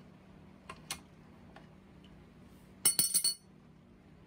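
A couple of faint taps, then a quick cluster of several sharp metallic clinks with a bright ringing, about three seconds in: steel tools and the chained fittings of a propeller puller knocking together.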